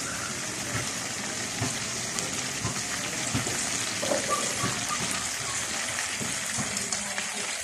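Chorizo sausages frying in oil in a steel wok: a steady sizzling hiss with scattered small pops and crackles.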